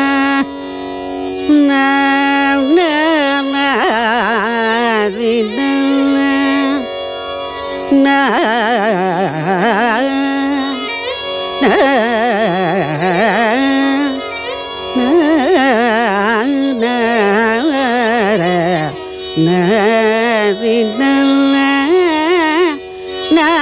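Carnatic classical music in raga Bilahari: a free-flowing melodic line that alternates held notes with rapid, wide oscillating slides between pitches, with no drum strokes.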